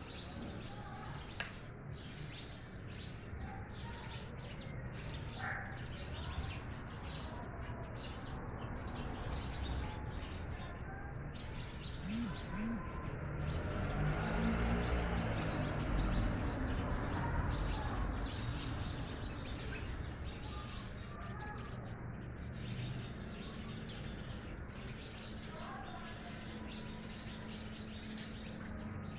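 House sparrows chirping in short, scattered calls over a steady background noise. A low rumble swells for a few seconds in the middle.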